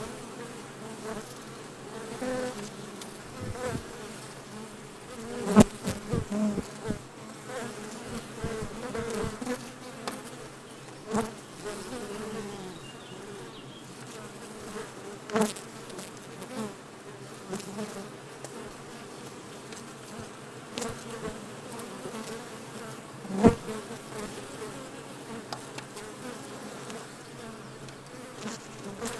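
A honeybee colony buzzing steadily inside a Japanese-style box hive with free-built comb. A few sharp clicks cut through the hum, about 5, 11, 15 and 23 seconds in.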